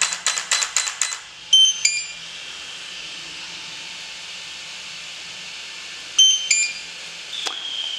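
Electronic beeps from an RC car's speed controller as it is powered on: a rapid run of short clicky tones, then repeated two-note beeps, a higher note followed by a lower one, over a faint steady high whine. The radio is not yet switched on.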